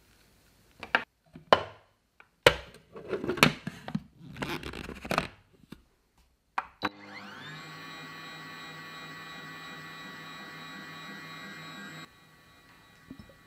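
Knocks and clatter of the lid being fitted onto an electric food processor's glass bowl, then a click and the motor starting, spinning up and running steadily for about five seconds as it kneads pizza dough, before cutting off abruptly.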